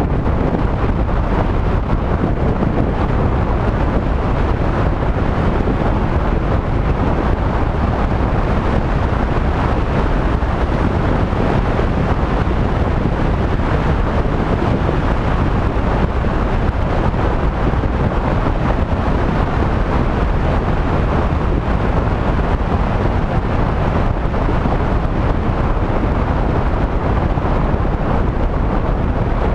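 Steady wind buffeting on a vehicle-mounted GoPro's microphone while driving, a constant low rumble of wind and road noise.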